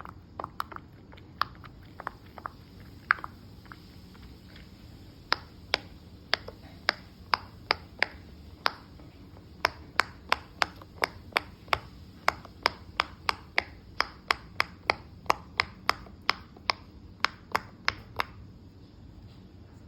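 A series of sharp pops, a few scattered at first, then a steady run of about two to three a second that stops shortly before the end: bubbles of a pop-it fidget toy being pressed one after another.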